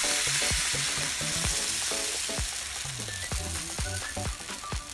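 Jaggery pude batter sizzling and crackling in hot oil as it is poured and spreads on a flat iron griddle (tawa): a dense, steady sizzle with scattered pops.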